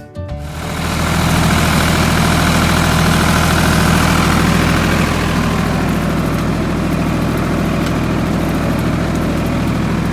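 Engine idling steadily, starting up loud within the first second and holding an even, low, throbbing pitch.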